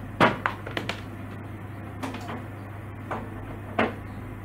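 A few scattered knocks and clicks from a plastic gaming keyboard and its cable being handled, the loudest about a quarter second in.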